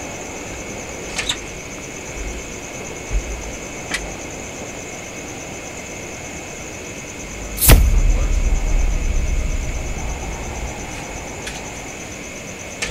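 Dark ambient sound design: a steady high-pitched whine with a few faint clicks, then one loud bang about eight seconds in, followed by a low rumble that dies away over the next few seconds.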